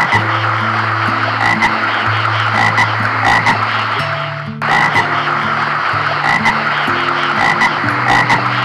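Toads calling in a dense, continuous chorus of croaking trills. It breaks off for a moment about halfway through and starts again abruptly.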